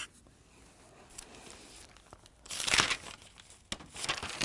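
Paper rustling as a stack of papers is handled, with one loud rustle a little over halfway in and lighter rustles near the end.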